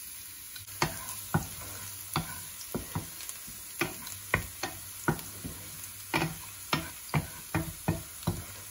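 Minced garlic sizzling in hot oil in a nonstick frying pan, frying toward golden brown, with a steady hiss. From about a second in, a wooden spatula taps and scrapes against the pan as the garlic is stirred, two or three irregular knocks a second.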